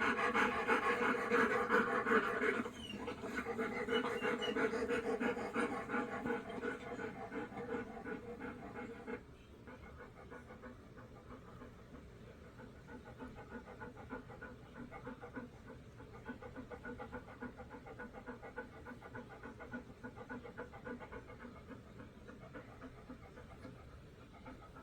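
Dog panting rapidly and steadily, quick short breaths in and out. It drops in loudness about three seconds in and again about nine seconds in, then goes on softer.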